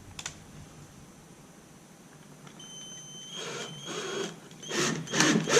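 Cordless drill with a Phillips bit driving screws into a wooden boat transom: a thin high motor whine that steps up partway, then a series of rasping strokes, about two or three a second, getting louder near the end.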